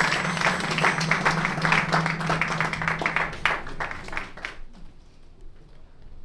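Audience applauding, with a low held note of music under it that ends about three and a half seconds in; the applause dies away a second later.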